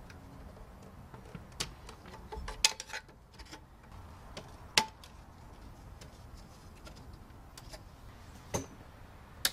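Scattered sharp clicks and light knocks of a computer's logic board, ribbon cable and metal chassis parts being handled and fitted together. There is a cluster of clicks a few seconds in and a single loud click near the middle.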